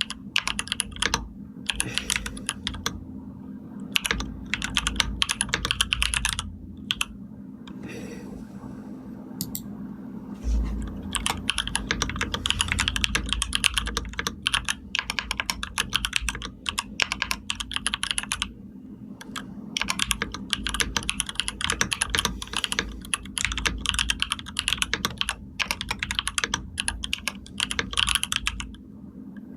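Typing on a computer keyboard: runs of quick keystroke clicks broken by short pauses, with a longer pause about a third of the way in.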